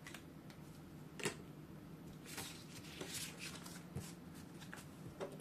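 Paper challenge card being slid out of a clear plastic envelope by hand, with rustling of plastic and paper and a few light clicks. There is one sharp click about a second in.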